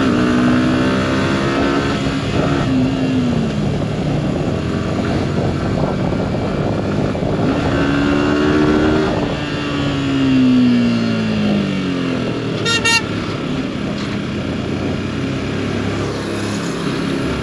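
Yamaha R15 V4 motorcycle's single-cylinder engine pulling hard on a straight, its pitch swelling and falling twice as it revs, over wind rush. A brief high-pitched beep about thirteen seconds in.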